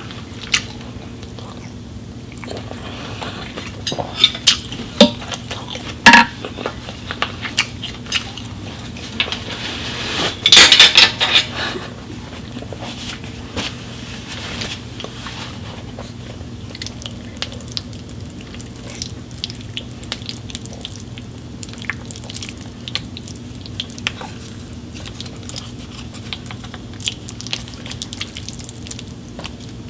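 Eating sounds: cutlery clicking and scraping on dishes in scattered sharp clicks, with a louder clatter about ten seconds in, over a steady low hum.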